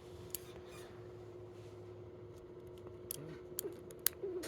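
A few light, sharp clicks of small metal magnetic fidget-pen parts being handled and fitted together, over a steady faint hum.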